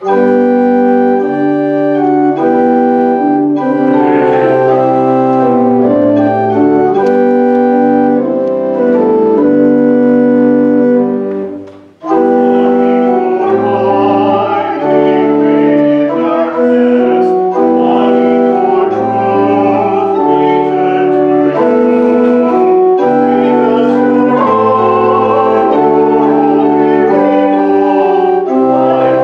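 Church organ playing a hymn in sustained chords over a moving bass line, with a brief break about twelve seconds in.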